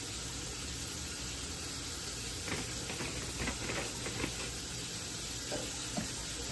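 Spoon stirring a brisket in sauce inside a crock pot: faint clicks and scrapes, mostly between about two and four and a half seconds in, over a steady hiss.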